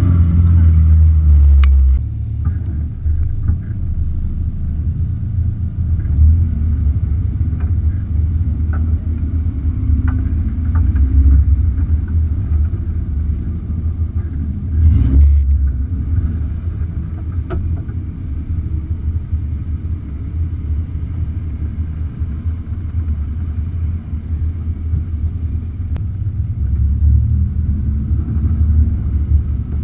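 Suzuki Samurai's engine running in a low, steady rumble as the 4x4 crawls off-road, louder for the first couple of seconds and then easing. Scattered clicks and knocks over it, with one brief louder swell about halfway through.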